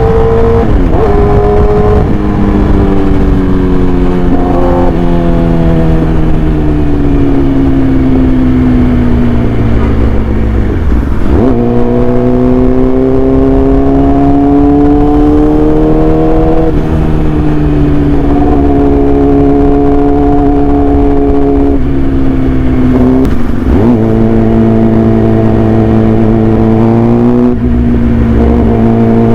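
Yamaha R6 inline-four engine with an SC-Project aftermarket exhaust, running under way. Its pitch rises and falls slowly over several seconds, broken by about eight brief dips and sudden jumps in pitch at gear changes.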